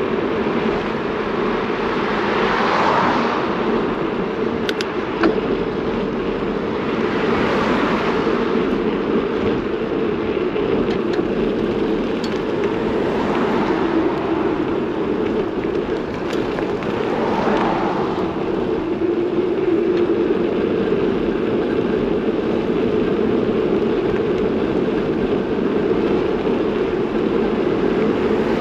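Steady road and wind noise while riding along a road, with motor vehicles passing about every five seconds, each swelling up and fading away.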